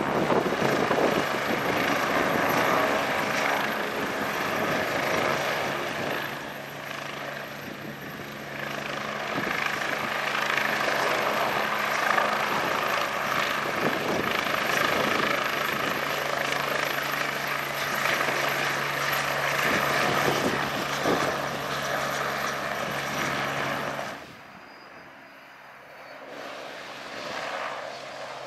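AgustaWestland AW109SP Grand New helicopter hovering and lifting off at close range, its twin Pratt & Whitney PW207C turboshafts and main rotor running loud and steady. About 24 seconds in the sound cuts off sharply to a much fainter helicopter, an Airbus H125, which grows a little louder near the end.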